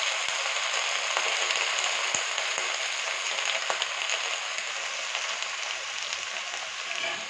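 Freshly chopped spinach sizzling in hot oil in a kadai, a steady hiss with scattered small crackles, easing a little toward the end.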